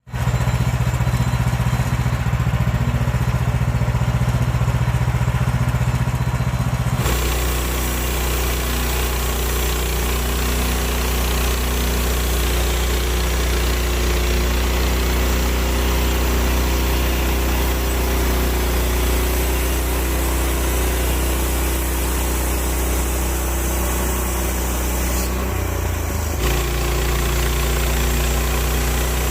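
Gas engine of a Woodland Mills bandsaw sawmill running steadily. Its sound changes abruptly about a quarter of the way in and again near the end.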